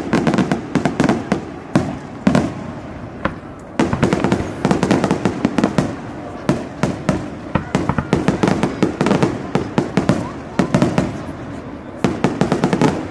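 Aerial fireworks shells bursting overhead, with dense rapid crackling from crackle stars. The crackle comes in waves, with a brief lull about three seconds in and another near the end.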